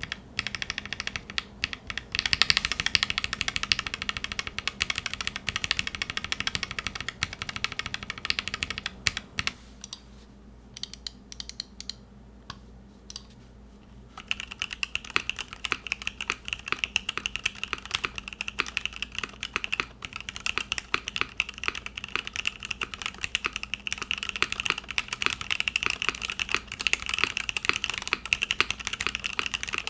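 Mechanical keyboard with linear switches being typed on in quick, continuous keystroke clacks. Around ten seconds in the typing stops for about four seconds. It then resumes with a higher-pitched clack, as if on a different switch.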